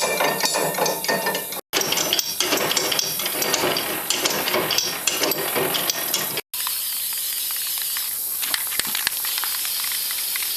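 Crackling, sizzling metalwork noise with rapid irregular clicks, cut twice by brief silences; the last part is a steadier hiss.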